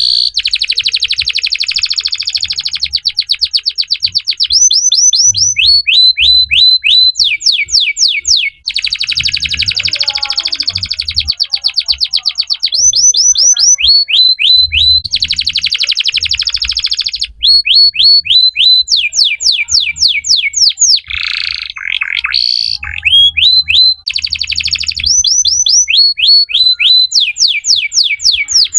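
Belgian canary singing a long, nearly continuous song of fast trills alternating with runs of repeated, quickly falling whistled notes.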